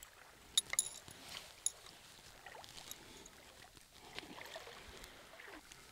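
Faint wash of surf on the beach, with a few sharp clicks, one ringing briefly, in the first two seconds.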